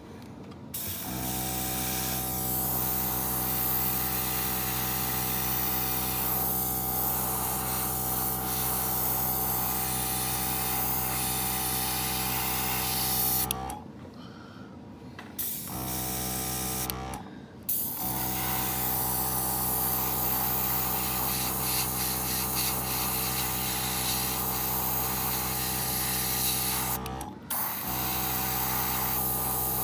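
Master Airbrush G22 spraying paint: a steady hiss of air over the even hum of its air compressor motor. It cuts out briefly about halfway through, again a few seconds later, and once more near the end.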